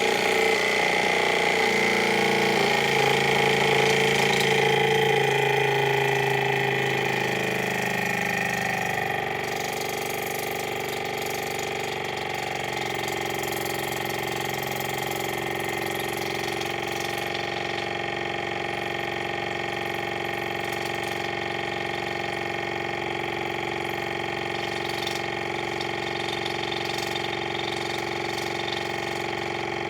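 Water pick's pump motor running with a steady buzzing hum, pumping warm soapy water to flush out earwax. It is a little louder for about the first ten seconds, then settles slightly quieter and very even.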